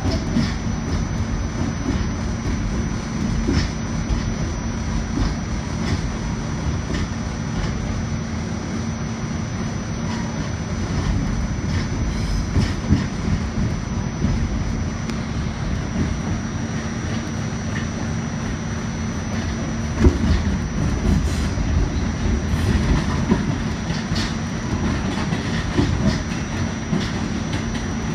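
R46 subway train running at speed, heard from inside the rear car: a steady rumble of wheels on rail with a constant hum. A few sharp clacks stand out, the loudest about two-thirds of the way through.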